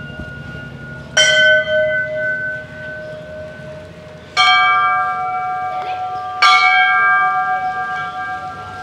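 Hindu temple bells struck three times, about a second in, at about four and a half seconds and at about six and a half seconds, each strike ringing on and slowly fading. The first bell is lower-pitched than the two that follow.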